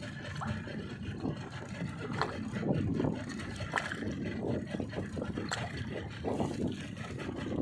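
Water sloshing and splashing against a small fishing boat at sea, rising and falling irregularly, with wind on the microphone and a few light knocks.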